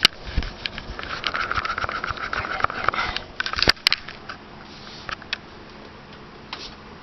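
Handling noise from a handheld camera: a sharp click at the start, then a couple of seconds of fabric rustling against the microphone, and two quick sharp clicks about three and a half seconds in. After that only a faint steady hum remains.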